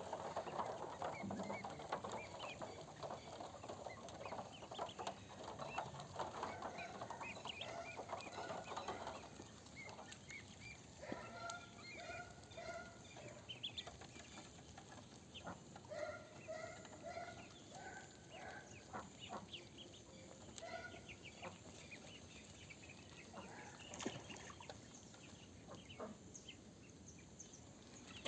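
A flock of ducks and ducklings calling: a dense chatter for the first nine seconds or so, then separate quacks in short runs, with many faint high peeps throughout.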